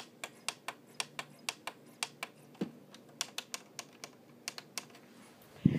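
A quick, even train of light clicks, about four to five a second, pausing briefly near the end before a dull thump.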